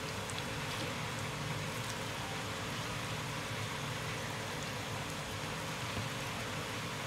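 Gram-flour bhajiya fritters deep-frying in hot oil in a steel pot: a steady sizzle with faint scattered crackles.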